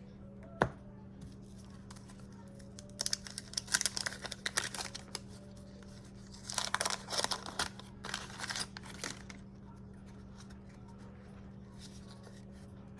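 Waxed-paper wrapper of a baseball card wax pack being torn open and crinkled, in several short crackly bursts about three, six and a half and eight seconds in. A single sharp click about half a second in.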